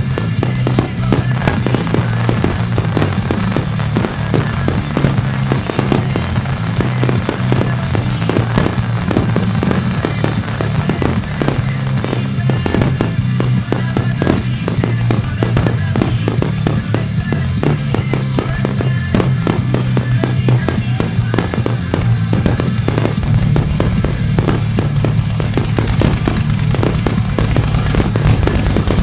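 A music starmine fireworks display: many shells bursting in rapid succession, bangs and crackles packed close together, over a rock song played on loudspeakers. The low boom grows heavier about three quarters of the way through.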